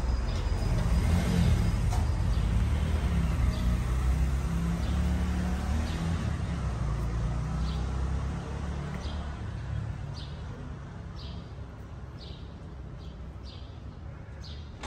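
Low rumble of a motor vehicle running close by, fading away over the second half. Toward the end it is joined by a row of short high chirps, about two a second.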